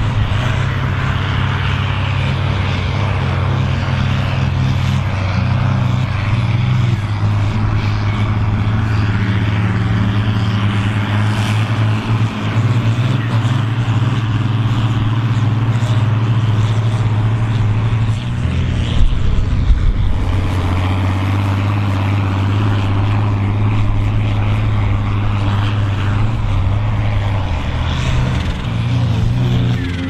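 Volvo BM 810 Turbo tractor's turbodiesel engine running hard under heavy load while pulling a plough at speed. The steady, loud engine note drops for a couple of seconds about two-thirds of the way through, then picks back up.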